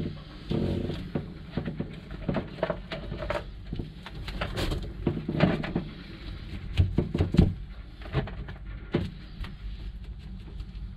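Irregular knocks and taps of a paintbrush banging epoxy into fibreglass mat laid over a bilge access hatch.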